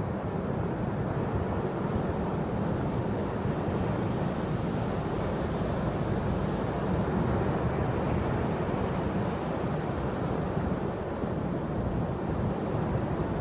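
Sea surf washing steadily, swelling slightly louder about six seconds in.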